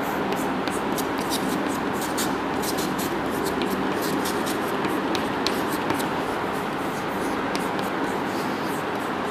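Chalk writing on a chalkboard: a run of quick, short scratches and taps as the letters are written, over a steady background noise.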